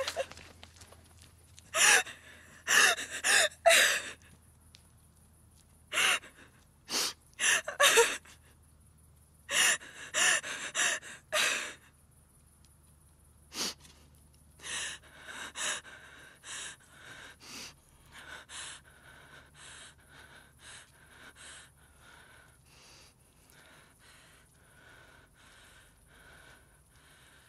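A woman sobbing in sharp gasping breaths. The sobs come in loud clusters for about the first twelve seconds, then grow shorter and fainter, ending in soft, regular shaky breaths.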